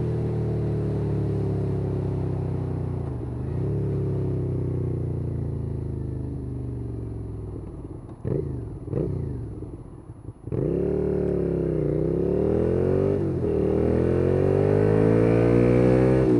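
Suzuki SFV650 Gladius V-twin engine through an aftermarket IXIL twin-pipe exhaust, heard from the moving bike. It runs steadily and slowly eases off. After a couple of short throttle blips it picks up loudly about ten and a half seconds in, with the revs swinging up and down and then climbing as the bike accelerates.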